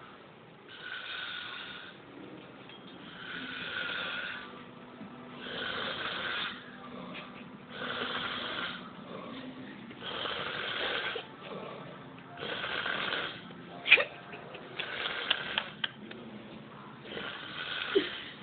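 A man snoring in deep sleep: a rasping snore roughly every two and a half seconds, about eight in all. A few sharp clicks come around the middle, and one more comes near the end.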